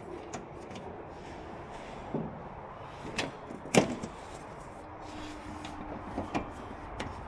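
Handling knocks and clicks, about half a dozen spread out, the sharpest a little under four seconds in, as the other side of a boom gate's target board is fitted on and its small twist locks are turned.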